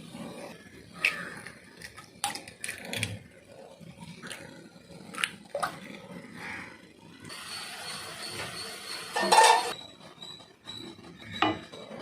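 Kitchen cookware and utensils being handled: scattered clinks and knocks. Past the middle comes a hiss of about two seconds with a loud clatter near its end, then a few more knocks.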